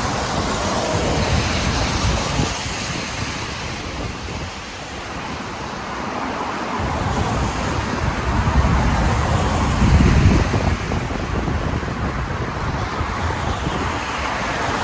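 Wind buffeting the microphone of a moving bicycle, with a steady hiss of tyres on a wet road; the low rumble of the gusts swells about two-thirds of the way through.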